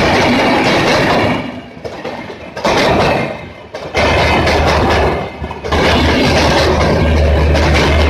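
Passenger coaches of the 12397 Mahabodhi Express passing close by at speed, wheels clattering and cracking over the track in loud surges with brief lulls between them. A low steady hum builds in the last couple of seconds as the train's rear generator car approaches.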